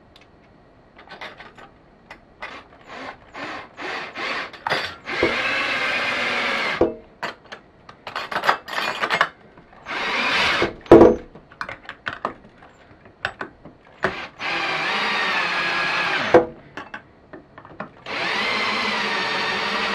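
Cordless drill with a quarter-inch drive socket driving bracket screws into a window frame. A few short trigger pulses start each screw, then four longer steady runs drive them home, with a sharp knock about eleven seconds in.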